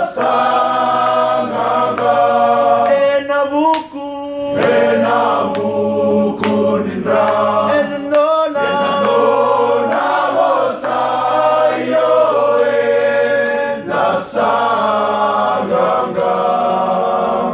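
Group of men singing a hymn a cappella in several-part harmony, long held chords with short breaks for breath between phrases.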